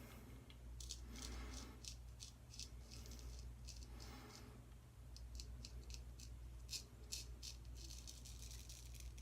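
Straight razor (Gold Dollar 208) shaving lathered stubble on the first pass: a run of short, scratchy strokes coming in clusters.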